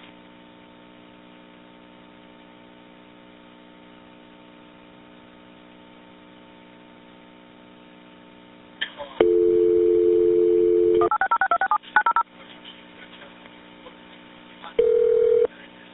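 Telephone line audio: a faint steady line hum, then about nine seconds in a dial tone for about two seconds, followed by a quick run of touch-tone dialing beeps. Near the end there is a brief single tone.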